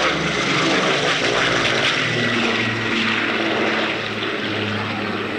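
Avro Shackleton's four Rolls-Royce Griffon piston engines, driving contra-rotating propellers, in a loud, rough drone as the aircraft flies past low. The sound eases off somewhat near the end as it draws away.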